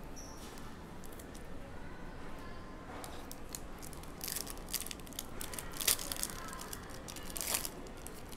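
Trading cards handled and shuffled in the hand, then a foil card pack crinkling and tearing open, in a series of short, crisp rustles.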